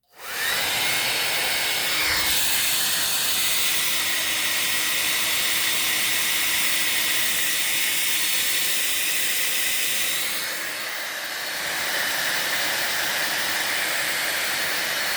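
Hair dryer switched on and blowing steadily on its low setting: a rush of air with a faint motor whine, briefly quieter about two-thirds of the way through.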